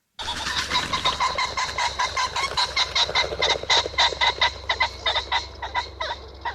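Common pheasant calling: a long, rapid run of short repeated notes, several a second, that starts abruptly and thins out near the end, over a steady low hum.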